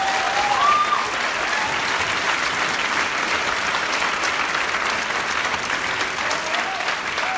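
Audience applauding steadily, with a few brief whoops rising over the clapping near the start and again near the end.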